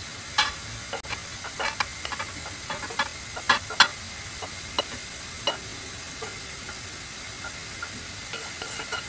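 A wooden spatula scraping and knocking against a frying pan as egg fried rice is emptied into a glass dish: a string of sharp clicks and scrapes over the first five seconds or so. A steady frying hiss runs underneath.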